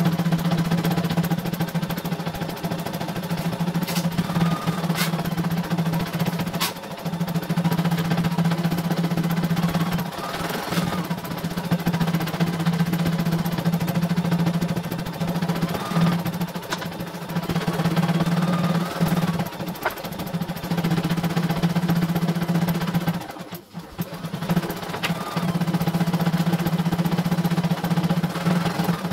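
CNY E900 computerized embroidery machine stitching a design: a fast, even run of needle strokes over a steady motor hum. It breaks off briefly several times, longest about three-quarters of the way through.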